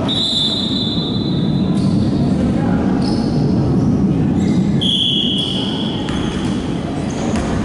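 A basketball bouncing on a hardwood gym floor in a large, echoing hall, with voices in the background. A high squeal is held for nearly two seconds at the start, and a shorter one comes about five seconds in.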